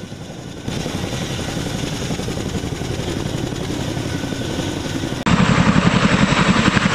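CH-47 Chinook helicopter's tandem rotors turning with a fast, steady rhythmic blade chop. It gets louder in two sudden steps, about a second in and again near the end.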